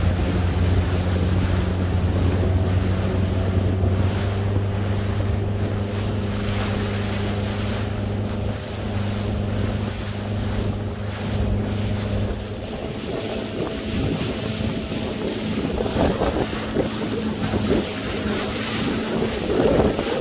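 Motorboat engines running with a steady low hum, over wind buffeting the microphone and choppy water. The strongest hum drops away about twelve seconds in, and a fainter engine tone carries on.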